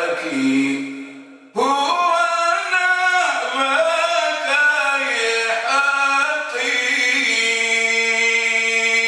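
A man sings a Comorian elegiac poem solo in a chanting, melismatic style. He pauses briefly about a second and a half in, then goes on, and near the end holds one long note.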